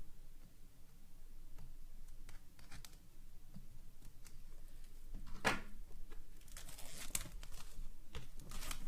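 Knife cutting through the plastic shrink-wrap on a small cardboard box, then the wrap being torn and crinkled. Mostly faint scattered clicks and scrapes, with a few short bursts of tearing plastic, the clearest about five and a half seconds in and again around seven seconds.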